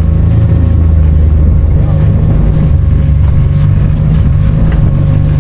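Steady, loud low engine rumble with a constant whine above it, as from a motor vehicle running close by.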